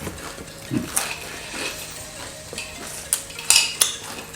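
Scattered light clicks and rustles of food being handled and eaten, with a few sharper clicks near the end.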